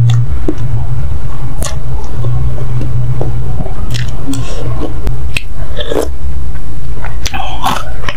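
Close-miked slurping and chewing of instant noodles in soup, with many short wet mouth clicks, over a steady low hum.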